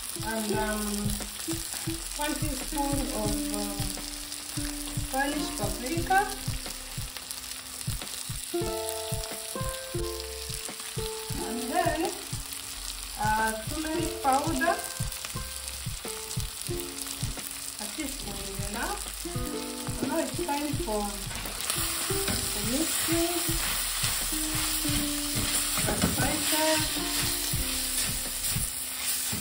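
Beef tripe with carrots and onions sizzling as it fries in a metal wok, stirred with a spatula. The sizzle grows louder about two-thirds of the way through.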